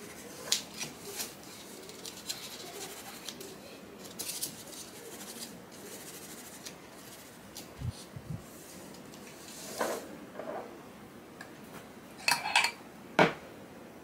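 Kitchen handling noise: small plastic dessert cups tapped and slid on the table, and a metal spoon clinking and scraping in a glass bowl of avocado cream. Short scattered clicks throughout, with the loudest clinks in a quick cluster near the end.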